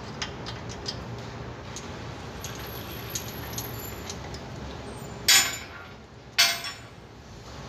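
Metal hand tools working on a car's rear suspension: scattered light metallic clicks, then two loud metal clanks about a second apart near the end.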